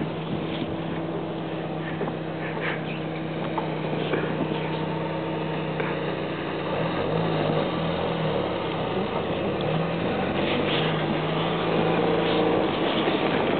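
Off-road vehicle engine running with a steady note. About halfway through, a second engine note that rises and falls joins it as another small 4x4 drives up on the snow.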